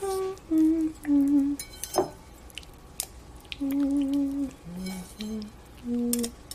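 A person humming a slow tune in long held notes that step downward in pitch, with a few sharp taps of chopsticks and a whisk against a glass bowl.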